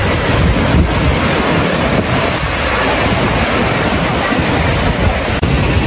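Water pouring steadily out of a tube water slide's exit chute into the splash pool, a constant rushing wash of water, with wind buffeting the microphone.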